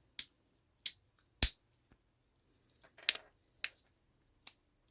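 Tools of a Victorinox 91 mm Swiss Army knife being opened and closed by hand, snapping against the backspring in six sharp clicks, the loudest about a second and a half in. The freshly oiled joint is being worked to spread the oil.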